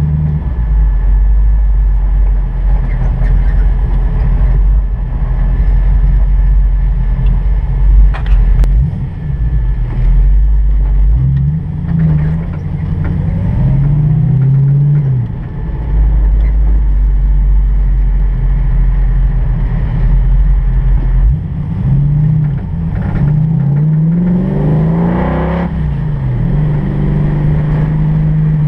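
1965 Mustang GT350R pro-touring car's engine running while driving. It accelerates twice, about eleven seconds in and again about twenty-one seconds in, its pitch climbing and dropping as it goes through the gears.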